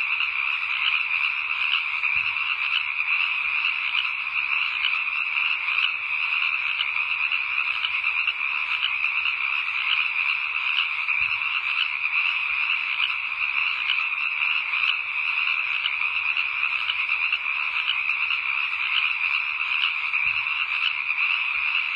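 A steady, dense night-time chorus of calling frogs, a continuous fast trilling that never breaks.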